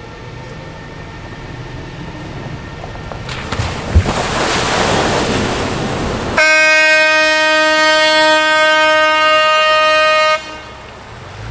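HafenCity Riverbus amphibious bus entering the river from the ramp: a rushing splash of water builds from about three seconds in, with a thump as it hits the water. Then a horn sounds one long steady note for about four seconds and cuts off.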